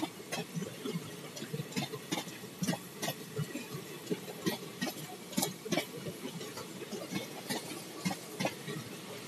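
Indian Railways passenger coaches running past at speed: a steady rattling clatter of wheels on the rails, with frequent irregular sharp clicks and knocks.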